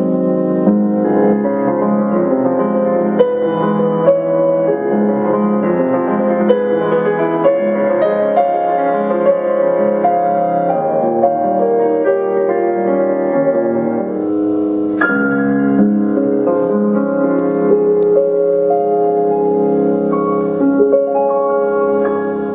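Background piano music, a melody of ringing notes that begins to fade out near the end.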